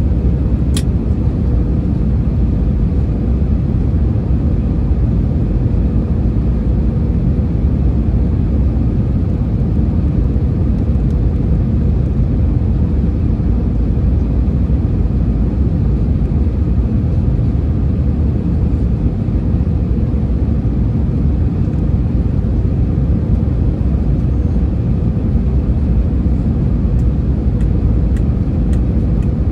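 Steady cabin noise inside an Airbus A321neo on final approach: a low rumble of airflow and engines with a faint steady hum. There is one sharp click about a second in.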